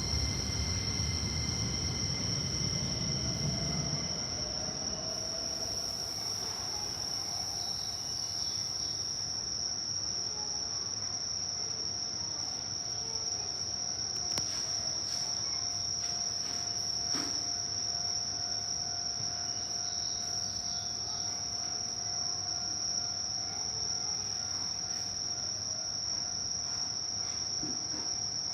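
Steady, high-pitched chorus of crickets chirping. A low train rumble fades out over the first few seconds.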